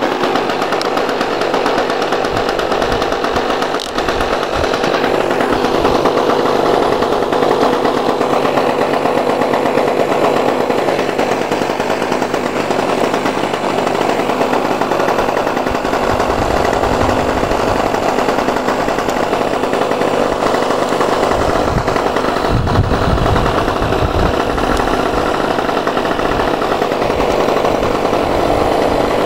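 Swiss Kraft SK1800 suitcase generator's engine running steadily, giving no voltage at its socket. A low rumble comes and goes in the second half.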